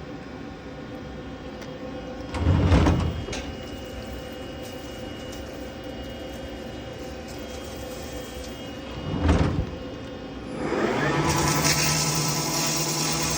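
CNC machine running in a shop, a steady mechanical hum with two brief loud surges. Near the end it rises in pitch and settles into a louder steady run with a hiss.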